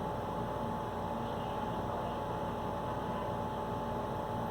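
Steady electrical hum with a few constant tones over a faint hiss: room tone, with no heartbeat or other distinct sound.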